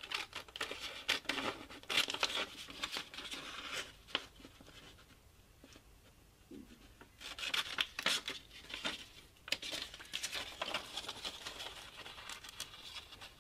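Scissors snipping through a sheet of paper, cutting out a pattern in runs of short crisp cuts, with the paper rustling as it is handled. The cutting quietens about four seconds in and picks up again about seven seconds in.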